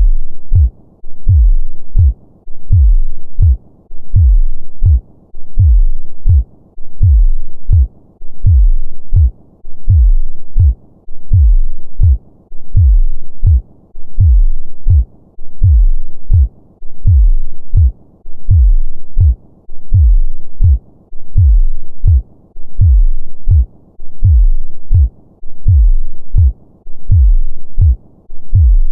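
Human heartbeat at a normal resting rhythm: a steady lub-dub of paired low thumps, a little over one beat a second.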